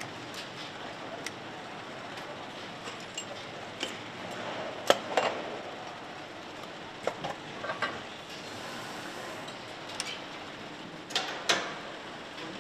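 Metal parts clinking and knocking on an engine assembly line, several sharp knocks in irregular clusters with the loudest about five seconds in, over steady factory background noise.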